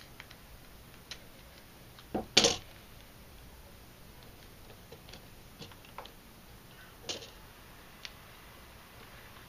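Masking tape pulled from the roll and torn, with small taps and clicks as strips are pressed onto a paper target. The loudest sound is a short tear about two seconds in, with a softer one near seven seconds.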